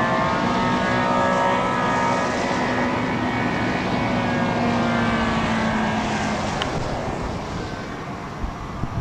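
An engine drones with a steady hum and higher tones that drift slowly down in pitch. The hum drops out about two-thirds of the way in and the sound fades toward the end.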